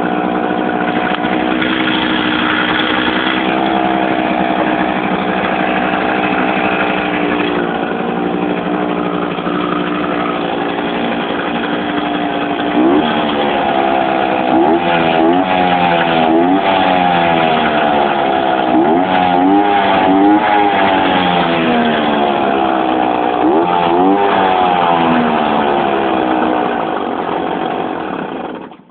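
Zündapp GTS 50 moped's 50 cc two-stroke single-cylinder engine idling steadily, then revved in a series of quick throttle blips from about halfway through, and switched off just before the end.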